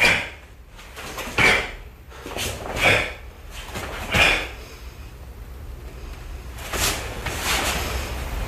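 Karate gi snapping and swishing with each technique of a solo kata, four sharp snaps about a second and a half apart, then a softer snap and a rustle of cloth and bare feet on tatami as the moves end.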